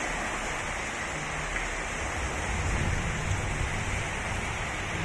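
Steady rushing noise of heavy rain and floodwater, with a low rumble that swells between about two and three and a half seconds in.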